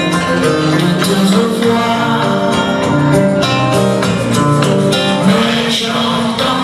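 A woman singing a gentle, sad song into a microphone, amplified through a PA, over electronic keyboard accompaniment with a light, steady beat.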